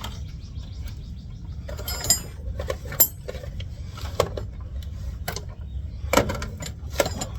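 Scattered metallic clinks and clicks of hand tools and steel steering parts knocking together, a few ringing briefly, while an idler arm bolt is worked toward its hole.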